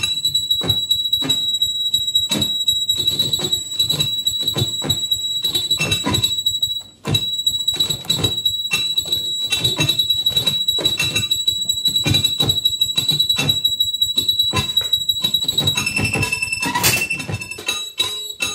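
Saxophone feedbacker, a saxophone driven into electronic feedback through effects pedals, holding a high, piercing whistle-like tone over a dense stream of irregular crackling clicks. About 16 seconds in the tone jumps lower and flares briefly.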